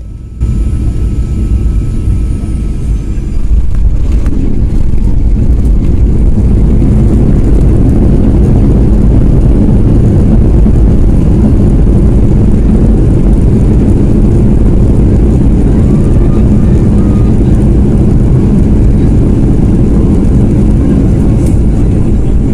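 Jet airliner landing, heard from the cabin. The noise jumps suddenly about half a second in as the aircraft touches down. From about three and a half seconds a loud, steady deep roar holds as it rolls out along the runway.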